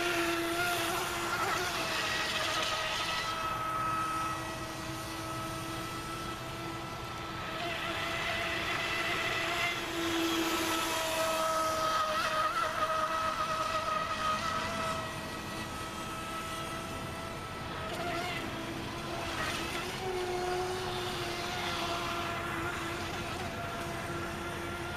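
Radio-controlled racing boat's brushless electric motor driving its outboard flex shaft at speed: a steady high whine with small shifts in pitch, over the hiss of water and spray. The sound swells and fades a few times as the boat passes.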